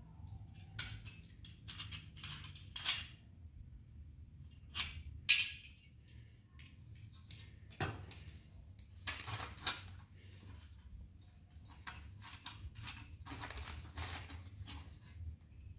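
Scattered clinks and clicks of black metal bracket pieces and screws being handled and fitted together on the floor, the sharpest knock about five seconds in.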